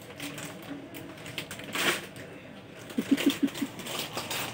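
A plastic snack packet crinkling and crackling as it is pulled and twisted to tear it open, with a quick run of about five short low pulses about three seconds in.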